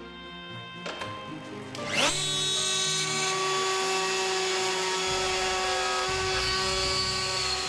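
Electric router motor of a manual pantograph with a 16 mm milling head spinning up about two seconds in, its pitch rising quickly, then running at a steady high whine while it cuts a hinge hollow.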